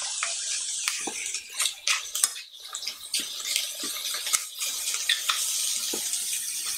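Beef goulash cubes searing in a hot, dry stainless-steel pot without fat: a steady hiss of sizzling, with scattered clicks of metal tongs against the pot.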